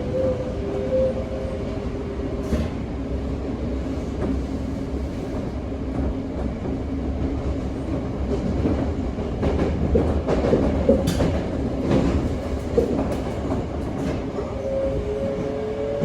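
Toei 5300 series subway train running, heard from inside the car: the whine of its Mitsubishi GTO-VVVF inverter drive over wheel and rail noise. The inverter tones sink a little at first, settle into a lower steady hum, and start rising again near the end. Through the middle come sharp clicks from the wheels over rail joints.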